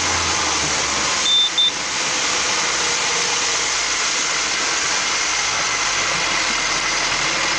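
Bearcat 85 hp outboard driving a boat along at speed, its steady running mixed with a heavy rush of wind and water as heard inside the cabin. Two short high beeps about a second and a half in.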